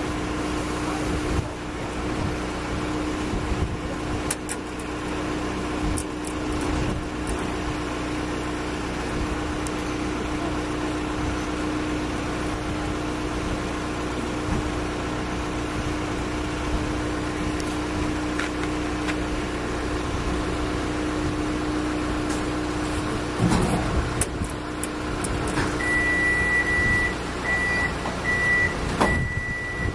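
A steady machine drone holding one low tone, with a few knocks later on. Near the end a high electronic beep sounds in short runs, one long and then several shorter.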